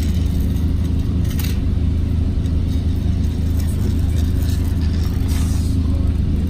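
Steady low rumble of a moving vehicle, with a faint click or two.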